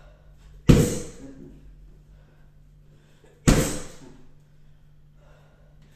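Two bare-foot kicks landing on a padded Blitz kick shield, each a sharp smack that rings on briefly in the room, nearly three seconds apart.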